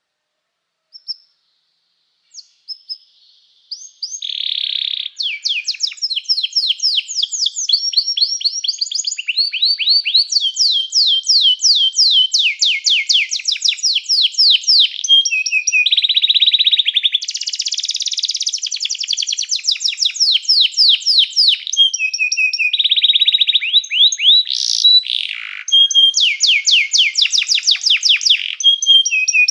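Domestic canary singing: a few short chirps, then from about four seconds in a continuous song of rapid trills, each a fast run of the same falling note, switching to a new trill every second or two.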